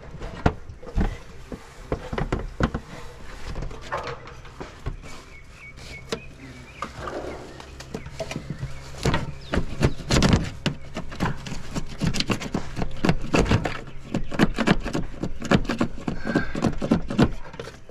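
Irregular knocks, taps and clicks of hand work on metal gutter and siding, some sharp and loud, over a steady low hum.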